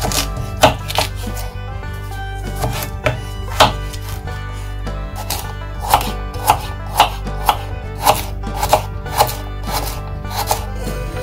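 Kitchen knife chopping a raw carrot on a wooden cutting board: sharp knocks of the blade on the board, a few scattered cuts at first, then a steady dicing rhythm of about two a second.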